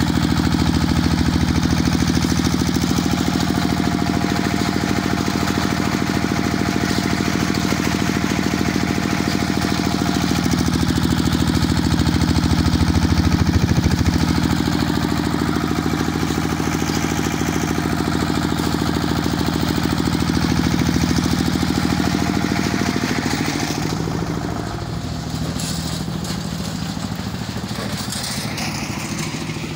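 Small stationary engine running steadily, driving the belt pulleys and gear-and-chain drive of a jhalar water lift. It grows a little quieter near the end.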